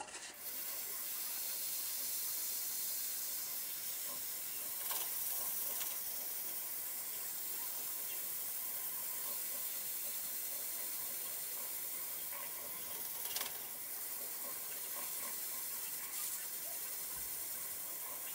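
Wood lathe starting up and spinning a Siberian elm and resin bowl while a hand presses abrasive paste against it: a steady hiss sets in just after the start, with a few brief louder scuffs.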